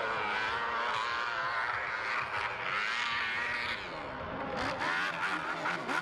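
Dirt bike engine revving hard on a steep dirt hill climb, its pitch rising and falling as the throttle is worked. It eases off briefly about four seconds in, then picks back up.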